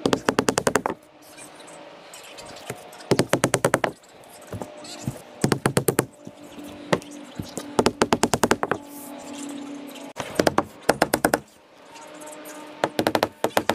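Hammer tacker driving staples through roofing felt into wooden roof sheathing. It comes in six quick bursts of rapid strikes, each burst under a second long, about every two and a half seconds.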